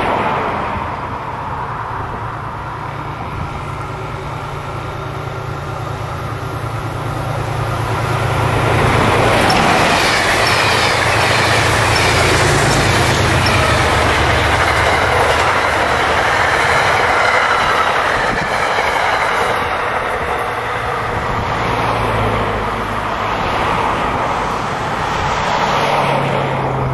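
Amtrak Vermonter passenger train and a Metro-North commuter train passing close on the four-track electrified main line, steel wheels clicking over the rail joints. The noise builds about eight seconds in, stays loud for some ten seconds, then eases.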